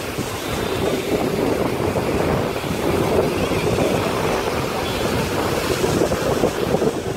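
Rough monsoon sea surging and washing against the concrete tetrapods of a seawall, a steady rushing of surf, with wind buffeting the microphone.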